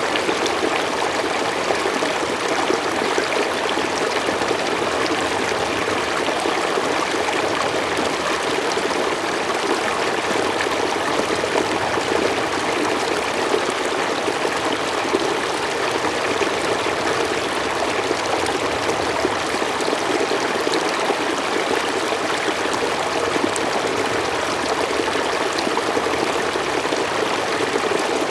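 Mountain stream flowing steadily over rocks, a continuous rushing and trickling of water.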